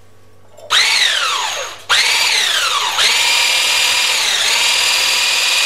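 Electric hand whisk beating eggs in a glass bowl. It switches on about a second in, stops briefly and restarts, its whine dropping in pitch after each start, then runs steadily at a high pitch. The eggs are being whisked until frothy before the sugar goes in.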